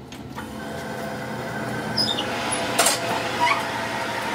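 Metal lathe with a drive-shaft yoke clamped in its four-jaw chuck starting up and spinning, its hum and gear whine rising in level over the first couple of seconds. A few sharp metallic clicks come in about three seconds in.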